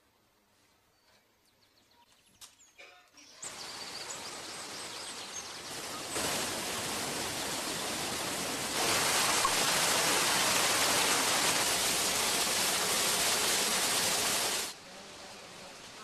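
Water rushing and cascading down a millrace beside a water-driven workshop, a steady rushing noise. It starts about three seconds in, gets louder in two steps, and cuts off suddenly near the end. Before it there are only a few faint clicks.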